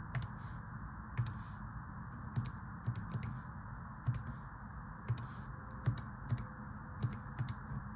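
Keys of a calculator being pressed: a string of short, irregular clicks, about a dozen over several seconds.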